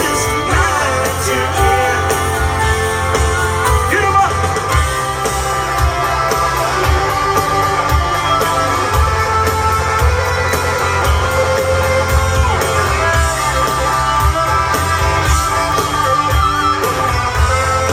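Live country-rock band playing loudly: electric guitars over a steady, pounding kick drum and bass beat.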